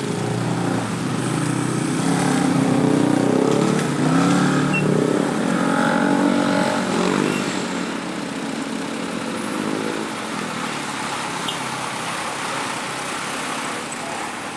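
Bus going by with its engine running while its basuri telolet horn plays a tune that steps between several pitches. The tune stops about eight seconds in, and the engine and road noise then fade.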